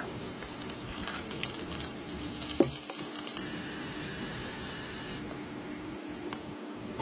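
Quiet handling sounds of miniature cooking: small utensils scraping and tapping on tiny ceramic bowls, with one sharp click about two and a half seconds in, over a faint steady hum.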